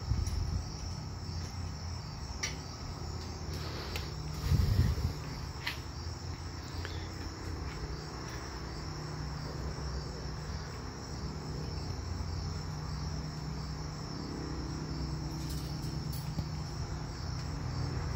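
Crickets chirping steadily over a low hum, with a few light clicks and one dull thump about four and a half seconds in.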